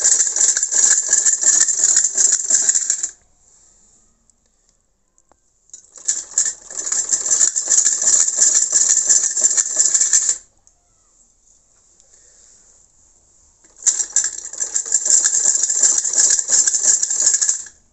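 Brother hand-crank sewing machine stitching with a fast, even clatter, run in three bursts of several seconds each with short pauses between them.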